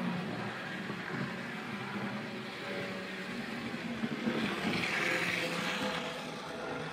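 Hornby Dublo Class 20 model diesel locomotive running round an OO gauge track loop, its small electric motor humming steadily. It grows louder and brighter about four seconds in and eases again near the end. The motor has just been serviced with new brushes, cleaned, oiled and re-magnetised, and runs smoothly.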